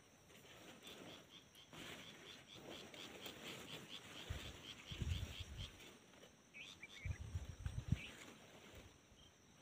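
Rhythmic chirping from a small animal, about five chirps a second for several seconds in the first half, with a few short higher chirps just after the middle. Low thumps come in two clusters, about five seconds in and again around seven to eight seconds in.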